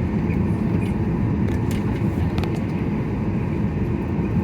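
Steady low rumble inside the cabin of a Boeing 737-800, with its CFM56 engines running and the cabin air going, and a couple of faint clicks about halfway.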